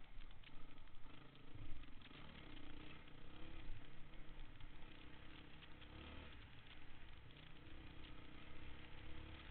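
Honda dirt bike engine running while riding a sandy trail, its pitch rising and falling with the throttle. Heard from the rider's helmet, mixed with a constant rattling rush of wind and ride noise.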